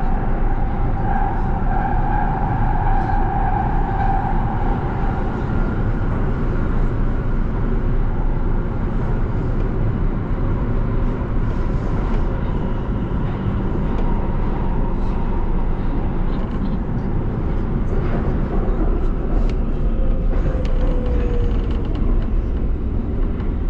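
Nuremberg U-Bahn DT3 automated metro train running through a tunnel, heard from the front of the car: a steady rumble of wheels on rails. A steady whine fades out about five seconds in, and a short falling whine comes near the end as the train nears the station.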